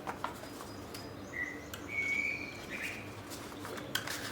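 A bird chirping briefly in the middle, a high call in three short pieces, over a few light clicks of handling.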